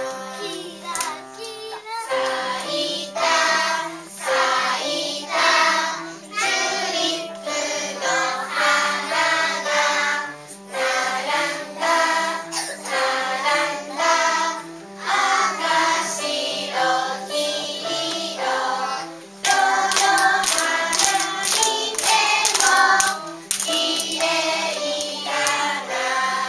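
A group of voices singing a song over a stepping instrumental accompaniment. About three-quarters of the way through, hand claps join in and keep going to the end.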